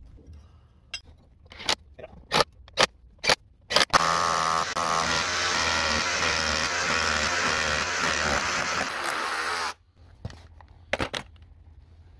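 A few sharp knocks, then a Makita cordless drill boring a bolt hole through a timber bottom plate for about six seconds, stopping abruptly, followed by a couple more knocks.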